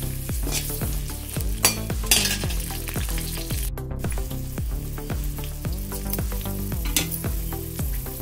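Peeled small onions and whole spices sizzling as they fry in hot oil in a kadai, with louder flares of sizzle about two seconds in and again near seven seconds.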